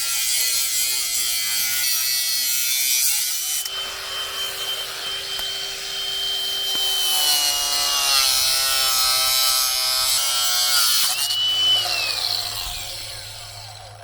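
Electric power tool running and cutting: a steady motor whine that sags and shifts in pitch under load, whines up once more about eleven seconds in, then spins down near the end.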